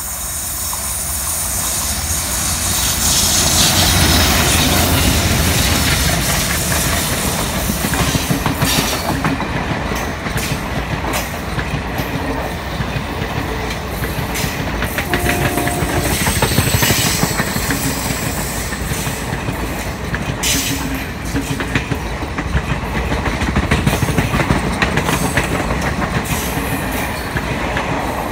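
Two WDM-3A diesel-electric locomotives working in tandem, their ALCO 16-cylinder engines rumbling as they approach and pass, loudest about four seconds in. Then the passenger coaches roll by with a steady clickety-clack of wheels on the track.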